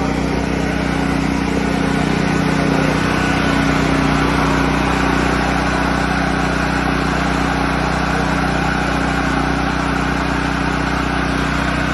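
Portable generator's small engine running steadily at constant speed.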